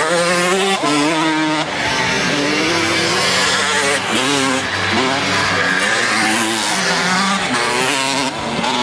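Motocross bikes racing on a dirt track, their engines revving up and falling back again and again as the riders work the throttle.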